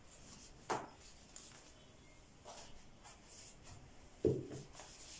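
Quiet rustling and handling of thin phyllo (gullash) pastry sheets being laid into an aluminium baking pan, with a soft thump about four seconds in.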